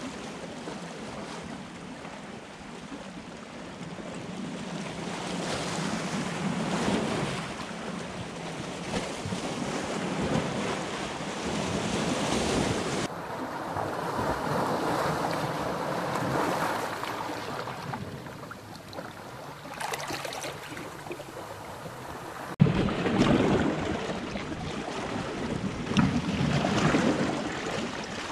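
Small sea waves lapping and washing over shoreline rocks, a surging, rushing wash, with wind buffeting the microphone. The sound changes abruptly twice, about 13 s and 22 s in.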